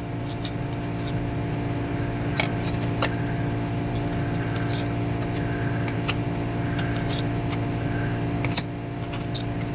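A steady mechanical hum, like a fan or air conditioner, with scattered light clicks and taps of trading cards being handled and shuffled through a stack.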